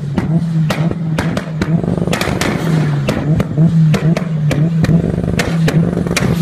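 Mitsubishi Lancer Evolution's turbocharged four-cylinder engine running with anti-lag, the exhaust banging and popping in rapid, irregular cracks over a steady, choppy engine drone.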